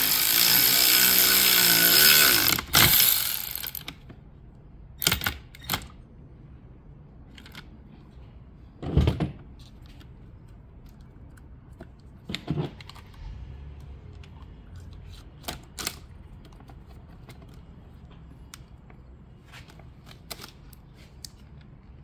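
Cordless electric ratchet with a T50 Torx bit spinning a seat belt anchor bolt, running loudly for about three seconds before stopping. Several sharp clicks and knocks follow as metal seat parts are handled.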